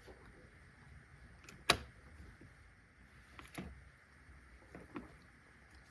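Small handling clicks of a sound decoder being fitted onto its pin socket in a model locomotive: one sharp click about two seconds in, then two fainter taps.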